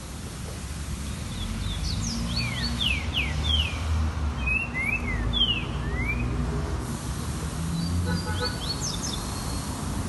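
Green-winged saltator (trinca-ferro) singing: a run of quick, falling whistled notes starts about a second in and lasts several seconds, then a shorter burst of notes comes about eight seconds in. A low background rumble runs underneath.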